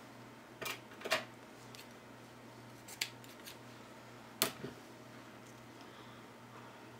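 A handful of short, sharp clicks and snaps from hands working satin ribbon on a white plastic Deco Fun Bow Maker, the loudest about a second in and again about four and a half seconds in.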